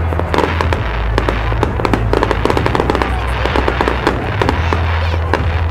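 Fireworks going off: dense, rapid crackling and popping from many bursting shells and crackle effects, over a continuous low rumble.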